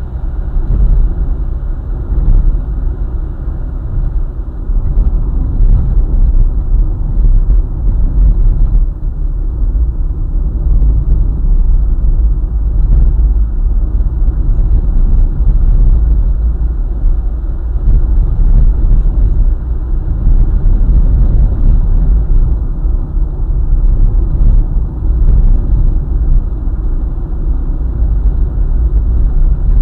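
Car driving on a highway: a steady low rumble of engine, tyres and road, with faint light ticks now and then.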